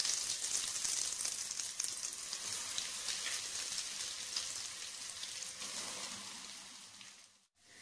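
Breadcrumb-coated egg bread roll deep-frying in hot oil in a steel kadai: a dense, crackling sizzle that fades gradually and cuts off just before the end.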